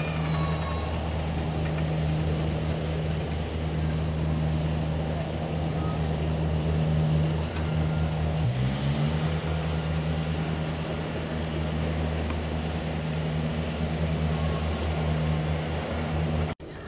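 An engine runs steadily with a low hum. Its pitch rises briefly about eight and a half seconds in, then settles back. The sound cuts off abruptly just before the end.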